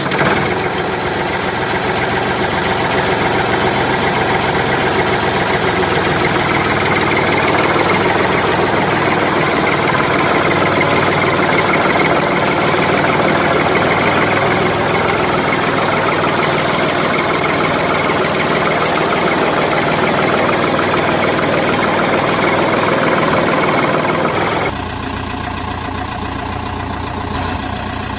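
Backhoe loader engine running steadily. About 25 seconds in it changes suddenly to a quieter engine sound with a different tone.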